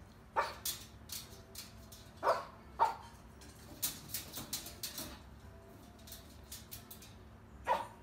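Moluccan cockatoo barking like a dog: a series of short, sharp barks at uneven intervals, the loudest about two to three seconds in and near the end.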